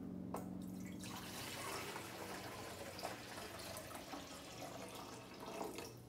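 Water poured from a jug into the Rancilio Silvia espresso machine's water reservoir, a steady pour that tapers off near the end.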